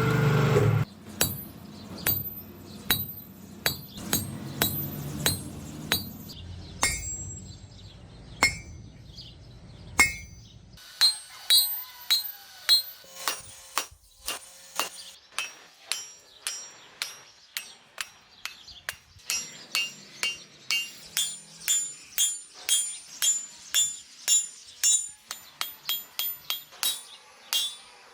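Hand hammer forging iron on an anvil, each blow ringing. The blows come about one and a half a second at first, then settle into a quicker steady rhythm of two to three a second. A steady low hum underneath stops about a third of the way in.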